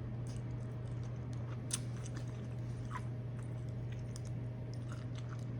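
Close-up chewing and lip-smacking while eating shrimp: scattered short wet clicks and smacks over a steady low hum.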